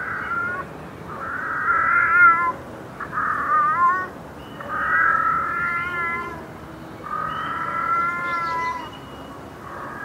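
Domestic cat meowing repeatedly: a series of long, drawn-out meows, about one every two seconds, several of them wavering in pitch at the end.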